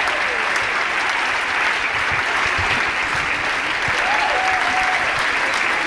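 Audience applauding steadily after a clogging routine, with a brief call from the crowd about four seconds in.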